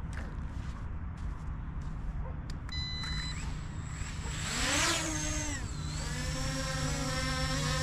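Multirotor fishing drone beeps once, then its propellers spin up about four seconds in with a rising whine and settle into a steady multi-tone hum as it lifts off carrying a bait line.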